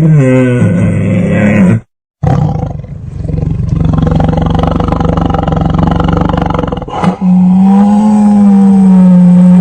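Tiger roaring in three separate calls: a short call falling in pitch, cut off suddenly before a brief silence, then a rough rumbling roar of several seconds, and finally a long steady roar held for about three seconds.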